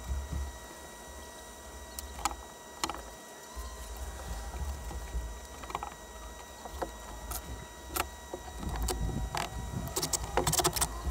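Scattered light knocks and clicks of wooden strips and hand tools being handled and set down on a plywood boat floor, with a quicker run of clicks near the end.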